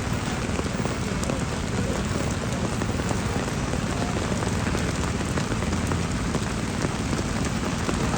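Heavy rain falling steadily, a dense, even patter of drops hitting surfaces.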